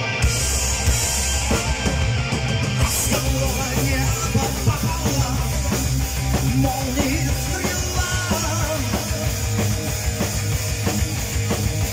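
Live metal band playing: electric guitars over a steady drum kit beat, with a male singer's vocals.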